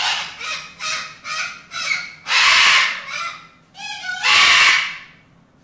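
Parrot screaming: a run of short harsh squawks, then two long, loud, raspy screams about two seconds apart.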